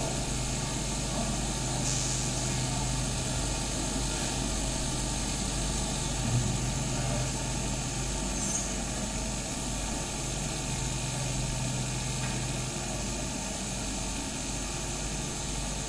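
Steady low hum with an even hiss: the room tone of a large hall while everyone keeps silent. A single faint knock a little past the middle.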